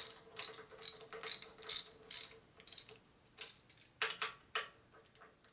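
Ratchet wrench clicking as the fork's pinch bolt is tightened, about two clicks a second, then a few more spaced further apart in the second half.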